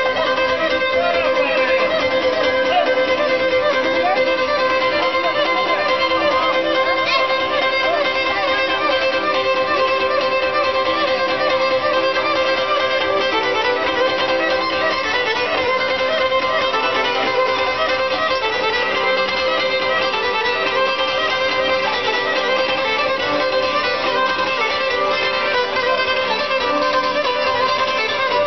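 Live Greek island folk dance music, played without a break: a violin carrying an ornamented melody over a plucked laouto accompaniment, amplified through loudspeakers.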